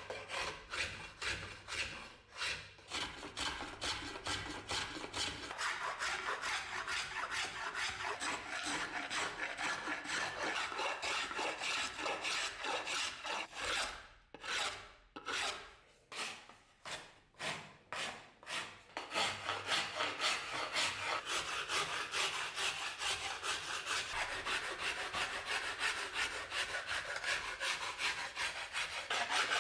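Hand file worked in rapid back-and-forth strokes, slowing to separate strokes with short pauses about halfway, then quickening again.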